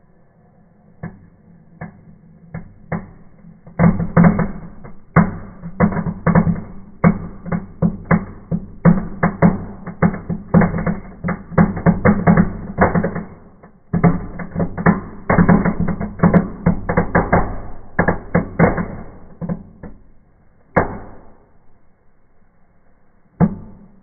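Fireplace fireworks made from a kitchen-paper-roll cracker burning in the fireplace, giving off a fast, irregular run of sharp crackling pops. A few pops come first, then a dense crackle sets in about four seconds in and keeps going most of the way, thinning to a few last pops near the end.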